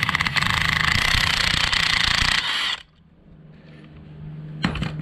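Cordless impact wrench hammering rapidly as it undoes the pinion nut on a Toyota Land Cruiser 40 series differential, then cutting off suddenly about three seconds in as the nut comes free. A single sharp click follows near the end.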